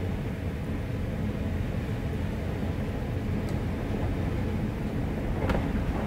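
Wind howling through the gap of a cabin door: a steady low rumble with faint whistling tones. One short click comes near the end.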